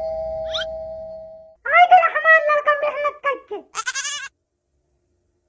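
Electronic ding-dong doorbell chime fading out over the first second and a half, then a high-pitched cartoon voice calling out for about two seconds, ending in a short, shriller cry.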